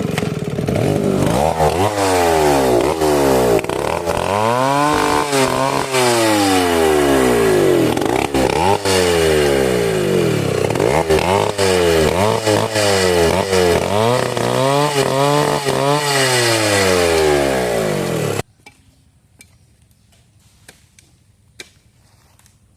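A two-stroke chainsaw cutting mahogany wood at high revs, its pitch repeatedly sagging and climbing back as the chain loads up and frees. It stops abruptly about 18 seconds in, leaving only a few faint ticks.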